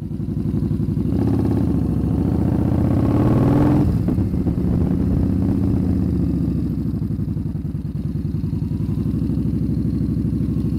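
Cruiser motorcycle engine running while stationary. The revs climb for about three seconds, drop back sharply about four seconds in, and then settle into a steady, pulsing idle.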